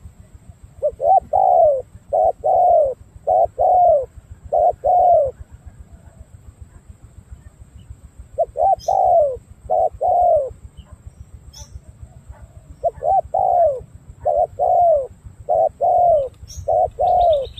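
Spotted dove cooing: three runs of repeated coos, each note rising then falling in pitch, with pauses of a few seconds between the runs.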